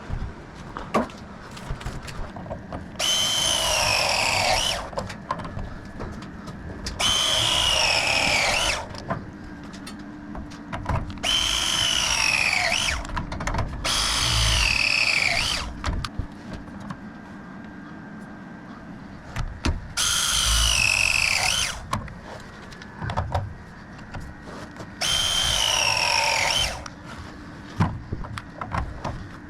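A handheld power tool run in six separate bursts of about two seconds each, its motor whine dropping in pitch during each run as it takes load. Another run starts right at the end, and there are small clicks and knocks in between.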